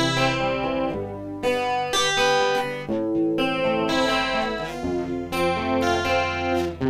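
Guitar fingerpicking and strumming chords over a bass line, the chord changing every second or two, played through the Ashley Point 6 mixer's Multi Pad DSP effect.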